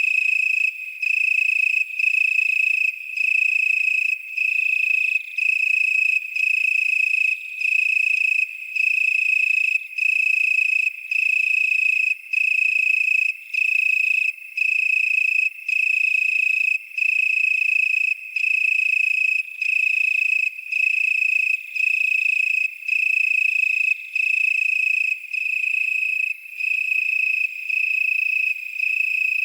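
A single cricket chirping close up in long, high-pitched trills of a little over a second each, separated by brief regular gaps, with a faint chorus of other insects behind it.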